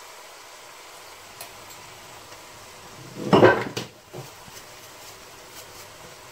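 Kitchen utensils clattering: a short, loud burst of metal knocks a little over three seconds in, then one lighter knock, as a spoon and seasoning containers are handled around a wok. A faint steady hiss lies underneath.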